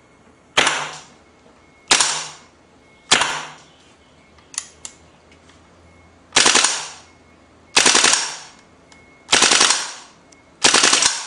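WE gas blowback AK airsoft rifle firing in seven short bursts, each a sharp crack that dies away within about half a second. The bursts come roughly a second apart, with a pair of light clicks about halfway through.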